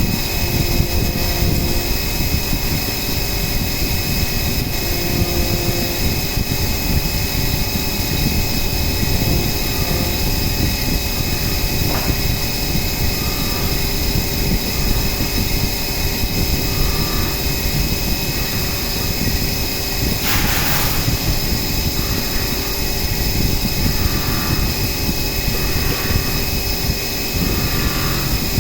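CNC milling machine running steadily while machining an aluminium AR-15 lower receiver: steady high-pitched whine tones over a constant noisy rumble, with a brief hiss about twenty seconds in.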